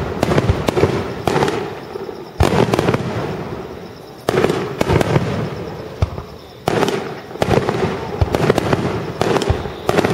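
Aerial fireworks bursting: loud booms about every two seconds, each followed by a quick run of smaller pops and crackles that fade away.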